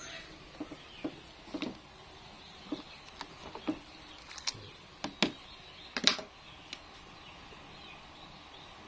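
Kitchen handling noises: light, irregular clicks and knocks, the loudest about five and six seconds in.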